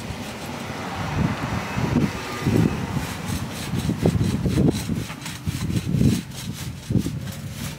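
Wind buffeting the microphone in irregular low gusts. For the first couple of seconds a paint roller on an extension pole rolls thick, sand-textured deck paint onto the wooden porch boards with a rough rubbing hiss.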